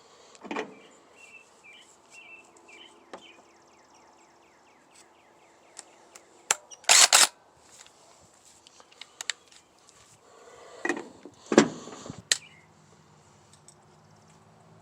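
Hand tools working on the metal mower deck while the spindle bolts are loosened: scattered clicks and metal knocks, with a loud clatter about seven seconds in and a few sharp knocks near the end.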